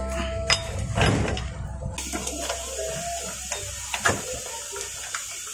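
Light metal clicks and scraping from a motorcycle's rear axle: the loosened axle nut is spun off by hand, then the axle shaft is slid out of the swingarm and wheel hub.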